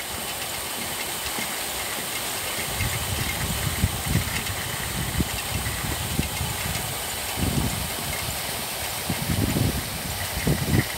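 Paddlewheel aerator churning pond water: a steady hiss of splashing spray, with irregular low buffeting underneath.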